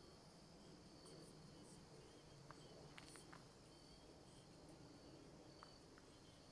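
Near silence with faint insect chirping: short high-pitched chirps repeating every second or two, and a few faint clicks around the middle.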